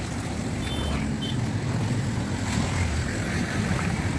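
Steady low rumble of road traffic heard from a moving two-wheeler, with wind buffeting the microphone.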